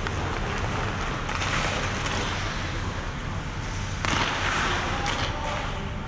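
Ice skate blades scraping across a rink in hissing swells, one about a second in and a louder one about four seconds in, over a steady rink din.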